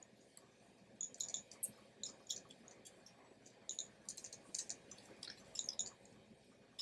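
Faint scattered clicks of small plastic jumper-wire connectors being handled and pushed onto a Raspberry Pi's GPIO header pins.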